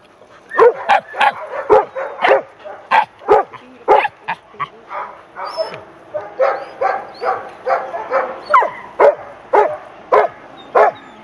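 Excited dogs barking over and over in short, sharp barks, about two a second, with a few high whines in between in the second half.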